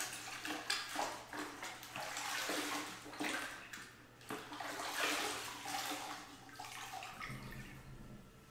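Water splashing and dripping in a bucket as a sponge is dunked and wrung out, ready for wiping down fresh caulk. The splashing dies away near the end.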